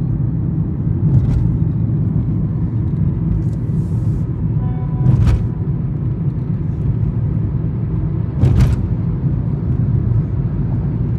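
Inside a moving car: steady low rumble of tyres and road noise, with a sharp thump about five seconds in and another about three seconds later as the wheels hit bridge expansion joints.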